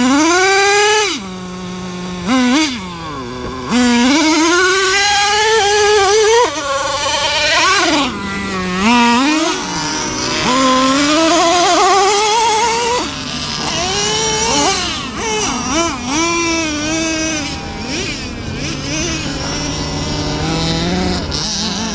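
Traxxas Revo 3.3's two-stroke nitro engine revving up and down over and over under hard throttle. The pitch climbs with each burst of throttle and drops back between them.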